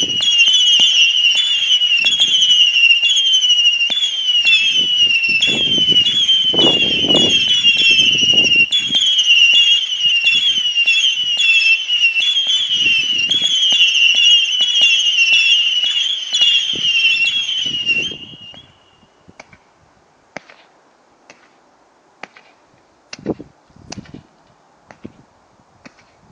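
A firework barrage firing a long salvo of whistles: many shrill whistles sound together, the pitch dipping over and over, with low launch thumps underneath. The whistling stops about eighteen seconds in, and scattered sharp pops and a few louder bangs follow.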